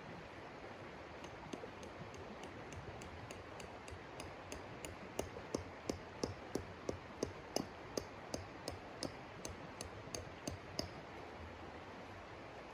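A rapid, regular series of sharp taps, about three a second, each with a slight ringing tail, strongest in the middle and fading out near the end, over a steady hiss.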